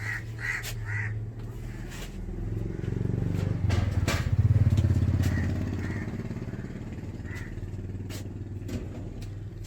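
A motor vehicle engine passing close by: a low drone that swells to its loudest about halfway through, then fades, over a steady low hum. Short high chirps and a few clicks sound near the start.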